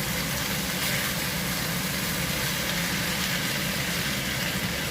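Chicken wings, mushrooms and celery simmering and sizzling in an uncovered pan, a steady hiss over a steady low hum.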